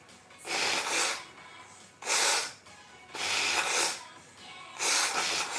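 A woman sneezing repeatedly: four short bursts about a second apart.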